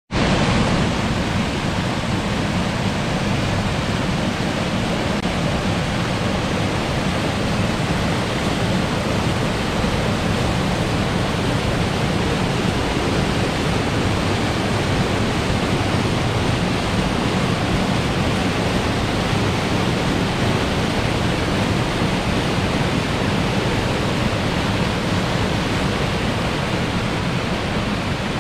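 Steady, unbroken rush of running water, even in level throughout.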